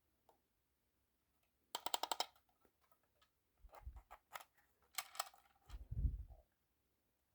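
Scattered sharp clicks and rattles, a quick run of them about two seconds in and more later, with two short low thumps; the siren and horn are not sounding.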